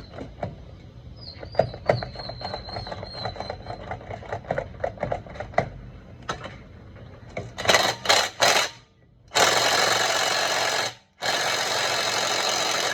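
Hand ratchet clicking rapidly, then an impact wrench hammering, first in a few short bursts and then in two longer runs of about a second and a half each, working on the wheel's lug nuts.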